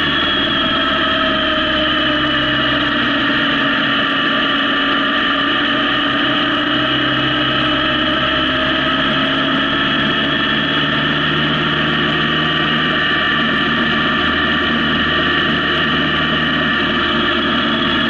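Honda CB750 motorcycle engine running at a steady cruise, its pitch easing down slightly and rising again, over an even rush of road noise.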